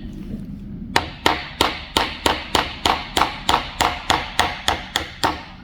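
A small hammer tapping a punch to drive the ejector roll pin out of an AR-15 bolt: about fifteen quick, even metallic taps, three or four a second, starting about a second in.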